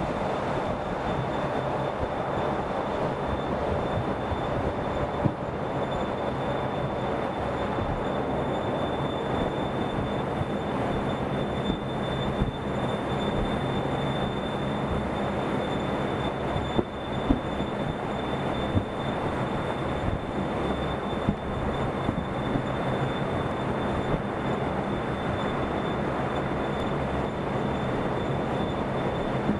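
Steady road noise from a moving vehicle: a rumble of tyres and engine, with a thin, steady high whine over it.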